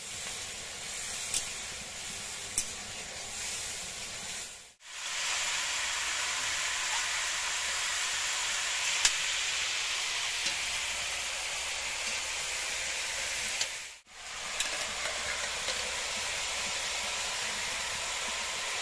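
Vegetables frying in hot oil in iron woks: a steady sizzle, with a few sharp taps of a metal spatula on the pan. The sound cuts out suddenly twice.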